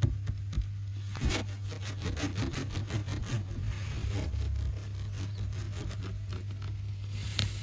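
Irregular rubbing and scraping on a textured surface, full of small scratches and ticks, over a steady low hum. A louder scratch comes near the end.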